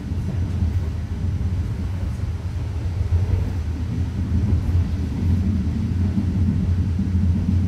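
Steady low rumble of a moving passenger train heard from inside the carriage, its wheels rolling along the track.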